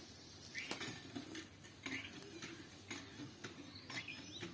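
Small birds chirping now and then in short calls, with scattered faint clicks.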